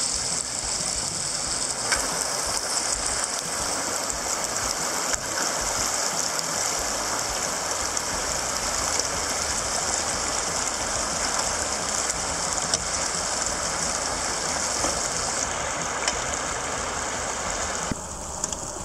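River rapids rushing steadily over rocks.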